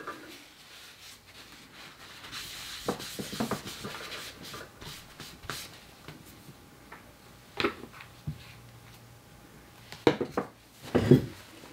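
Handling noises: soft rustling with a few scattered light clicks and knocks, the loudest near the end.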